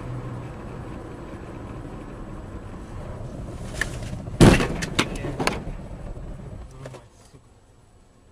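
Steady car road and engine noise, broken about four and a half seconds in by a loud bang and a few sharp knocks, typical of a vehicle collision. The noise falls away near the end.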